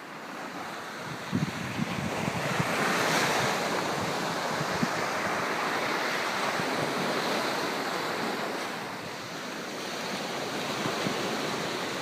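Pacific surf washing onto a sandy beach: a steady rush of breaking waves that swells over the first few seconds, eases briefly around nine seconds, then builds again.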